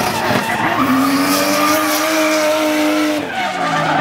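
Drift car's engine held high in the revs while the rear tyres spin and squeal through a slide. The engine note falls sharply about three seconds in.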